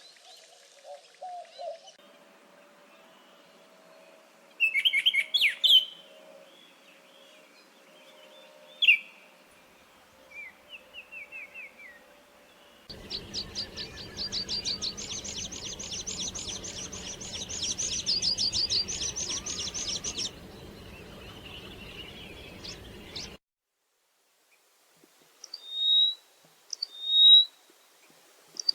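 Small birds singing and chirping in several short passages: scattered chirps and brief phrases, then a long, fast trill of quick high notes lasting several seconds, and near the end a run of repeated short high notes.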